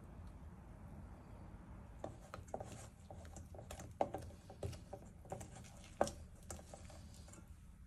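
Silicone spatula stirring and scraping thick choux pastry dough in a stainless steel bowl as beaten egg is worked in, with wet squelches and short knocks. It starts about two seconds in, with the sharpest knocks about four and six seconds in.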